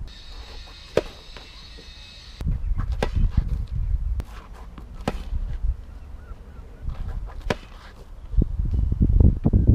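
Tennis ball being struck by a racket and bouncing on the hard court: several sharp pops a second or two apart. Wind buffets the microphone with a low rumble from about two and a half seconds in.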